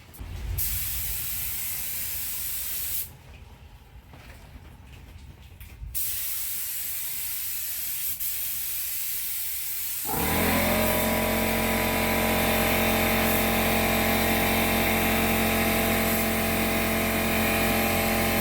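Compressed air hissing in long blasts, stopping for a few seconds before starting again. About ten seconds in, a motor starts and runs with a steady hum under the continuing hiss.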